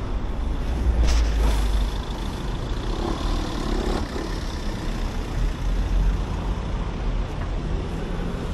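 Road traffic passing along a street, a steady low rumble of vehicles with a brief hiss about a second in.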